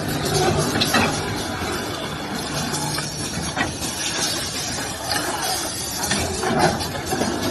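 Automatic towel sewing machine running: a steady motor hum and mechanical clatter, with a few sharp clicks scattered through it.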